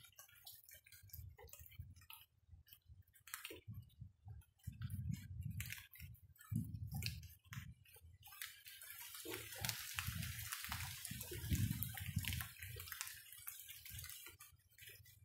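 Rain dripping and pattering: scattered single drops tapping, with a denser hiss of falling rain from about halfway through until shortly before the end. There are a few low, dull thumps mixed in.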